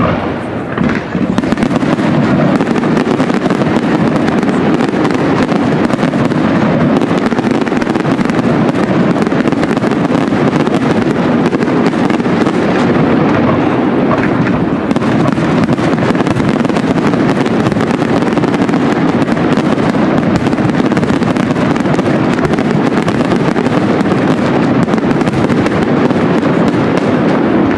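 Display fireworks bursting overhead in a dense, continuous barrage of crackles and bangs, with no let-up in loudness.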